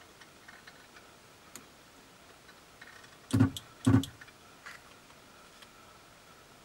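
SUNKKO 737 battery spot welder firing twice, about half a second apart, welding nickel strip onto li-ion cells. Each weld is a short, loud buzzing snap, with faint handling ticks between.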